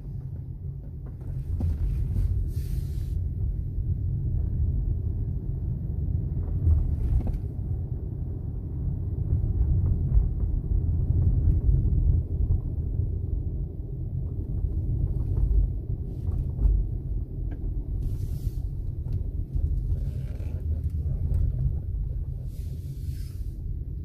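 Steady low rumble of a 2021 Audi A6 driving, heard from inside the cabin: road and tyre noise with the drivetrain. A few faint short hisses sit above it.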